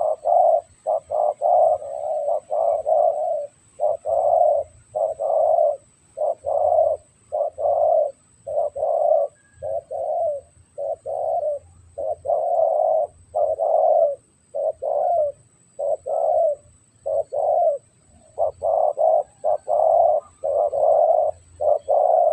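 Spotted dove (tekukur) cooing over and over in quick, low, throaty phrases with short pauses between them.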